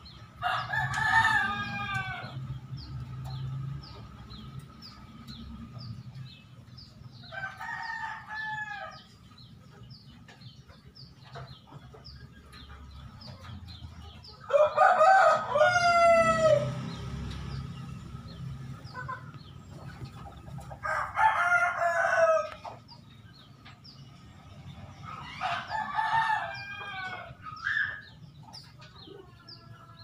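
Rooster crowing five times, each crow about two seconds long and a few seconds apart, over faint, scattered chirping of Eurasian tree sparrows.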